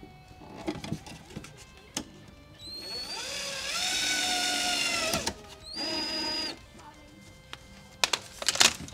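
Cordless drill spinning up and running for about two and a half seconds, then a second, shorter one-second run, drilling into a plastic bumper spat. A few sharp clicks and knocks near the end.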